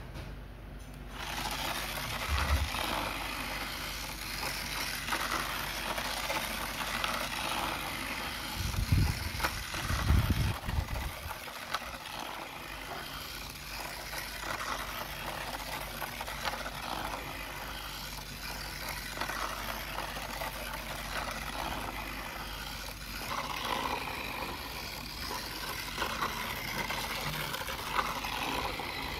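Battery-powered plastic toy train running on a plastic roller-coaster track: a steady rattling whir from its small motor and wheels on the track. Two dull thumps come about nine and ten seconds in.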